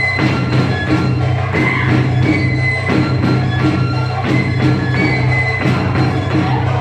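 Music with a steady drum beat under a high held melody line, accompanying a folk dance.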